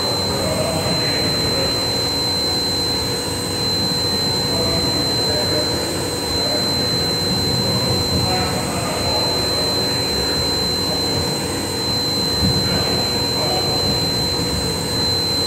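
CNC machine running, a steady high-pitched whine over a continuous rumbling mechanical noise.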